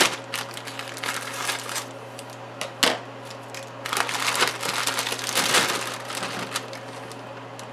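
Plastic bag of fresh green beans crinkling as it is handled, opened and tipped out onto a wooden cutting board, with a sharp snap about three seconds in.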